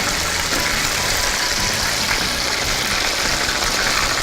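Potato-starch-coated chicken pieces deep-frying in hot oil, a steady sizzle.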